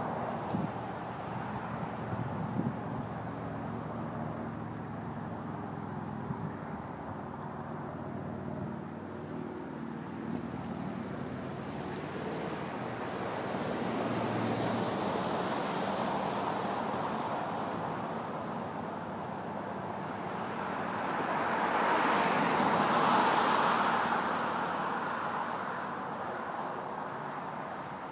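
Vehicles passing on a road: a smaller rise in tyre and engine noise about halfway through, then a louder car that swells and fades near the end. Faint insect chirring runs underneath.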